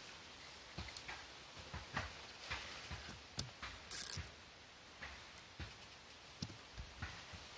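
A machete blade shaving and whittling a thin wooden stick: irregular light scrapes and taps, with a longer scrape about four seconds in.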